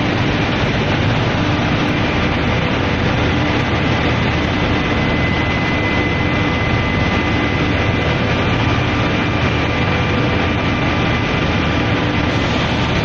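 Steady, loud noise of industrial heating machinery running, an even rush with a few faint steady tones in it.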